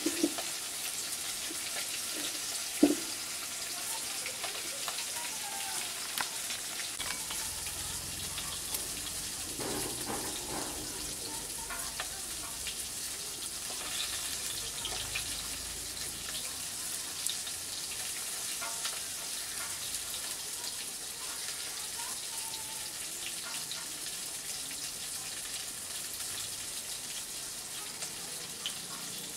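Steady sizzle of rui fish frying in hot mustard oil, with a few sharp knocks in the first three seconds.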